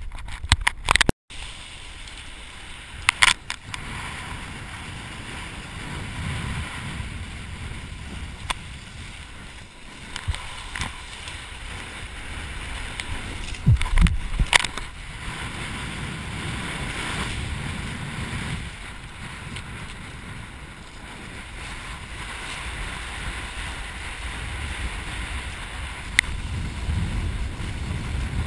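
Choppy water splashing and rushing against a kitesurfer's board right at the microphone, with wind buffeting it. Several sharp splashes or knocks break through, the loudest about fourteen seconds in.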